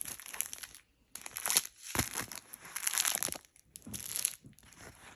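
Plastic packaging crinkling as a diamond-painting canvas is handled and moved, in several bursts with short pauses between them.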